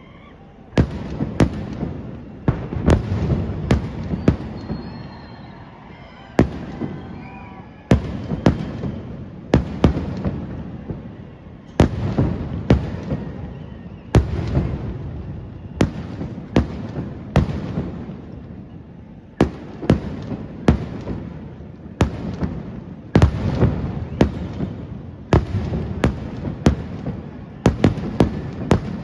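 Fireworks display: aerial shells bursting in an irregular series of sharp bangs, often several in quick succession, each trailing off into a rolling low rumble of echo.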